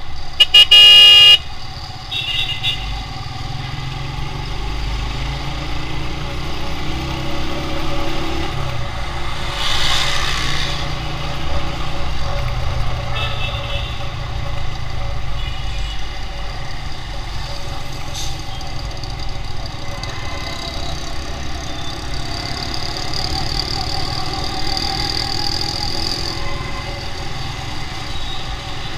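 Motorcycle engine and road noise from riding through busy city traffic, with a very loud horn blast about a second in and fainter horns from other traffic a couple of seconds later and again around the middle.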